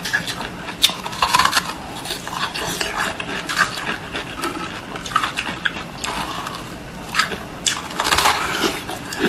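Close-miked biting and chewing of a block of green-coloured ice: a quick irregular run of crisp cracks and crunches, with a denser spell of crunching near the end.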